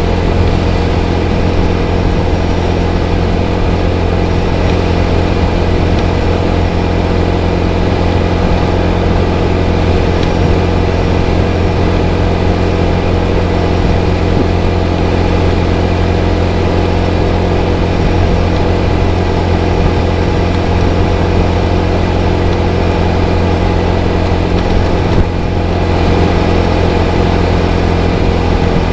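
Motorcycle engine running at a steady cruise on the road, with wind and road noise. Near the end the sound briefly dips, then comes back a little louder.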